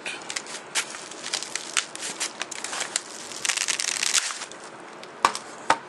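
Plastic packaging crinkling and crackling as it is handled and pulled open by hand, with two sharper clicks near the end.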